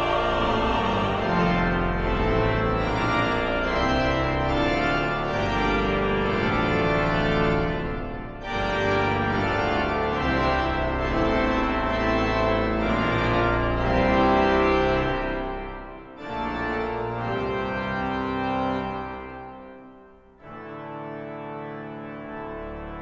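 Organ music: sustained chords played in phrases, with brief breaks about 8 and 16 seconds in, and a quieter, softer passage near the end.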